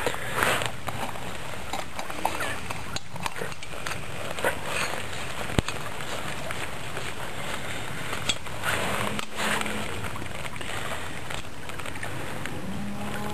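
Scattered small metal clicks and taps from handling a Gelert gas camping stove, as the burner is unscrewed from its canister and its pot-support arms are folded, over a steady rushing background noise. A faint low hum sounds briefly about nine seconds in and again near the end.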